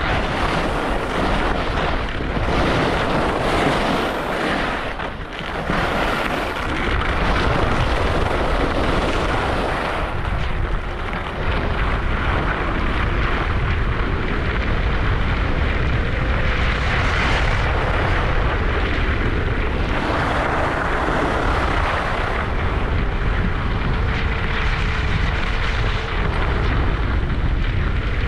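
Wind rushing over the microphone while skiing downhill, with the hiss and scrape of skis running over snow that swells and fades with the turns.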